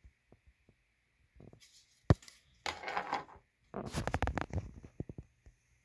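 Hard plastic model car kit parts handled and set down on a stone countertop: a sharp click, then two spells of rattling and scraping, and a few light clicks near the end.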